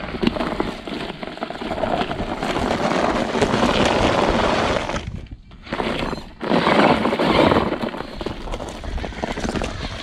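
A 1/10-scale RC rock crawler (FTX Ravine) climbing a loose rocky slope: dense crunching and clattering of tyres and stones over gravel, with its drivetrain running. The noise drops out briefly twice around the middle.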